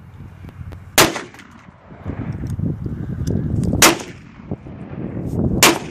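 Three rifle shots fired from a bench, each a sharp crack with a short ringing tail, about a second in, near four seconds and near the end.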